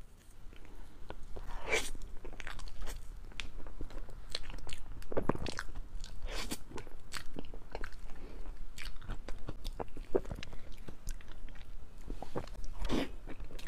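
Close-miked biting and chewing of a chocolate cake with a crunchy, nut-studded chocolate shell: many irregular crisp crunches, starting about a second in.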